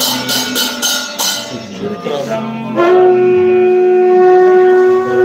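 Conch shell blown in one long, steady, loud note that starts about halfway through and holds, as at the climax of a temple abhishekam. Before it comes a run of sharp, regular strikes, about three a second.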